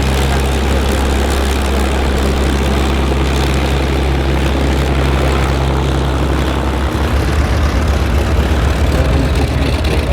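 Propeller-driven aircraft engine droning steadily; about seven seconds in the low drone shifts into a pulsing throb as the aircraft's sound changes.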